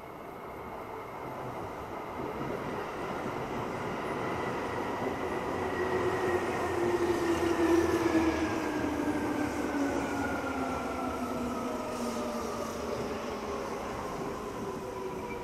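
Seibu 2000 series electric train pulling into a station as it brakes: its drive whine glides steadily down in pitch over the running noise of wheels on rail. It is loudest about eight seconds in as the cars pass.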